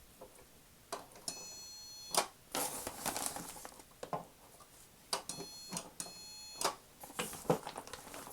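Vintage Fisher-Price toy checkout cash register's scanner beeping three times as items are scanned, each beep shorter than a second. The beeps are mixed with clicks and rustling from handling the toy groceries.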